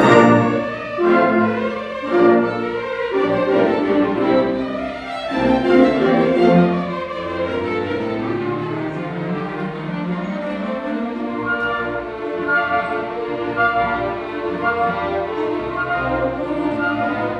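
Full orchestra playing a waltz, bowed strings to the fore with cellos beneath. Swelling and loud through the first several seconds, then settling into a softer, steadier passage.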